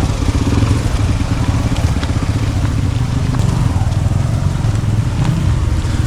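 Motorcycle engine running steadily under way, with a fast, even low throb.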